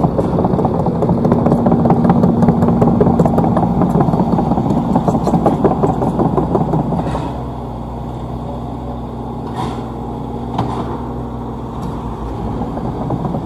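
Excavator's diesel engine running hard under load as it pushes a loaded dump truck. About seven seconds in it eases to a lower, steady run, with a few sharp knocks.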